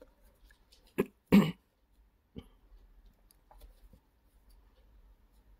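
A person gives a short cough, two quick sounds a moment apart about a second in. After it come faint ticks and rustles of a crochet hook working yarn.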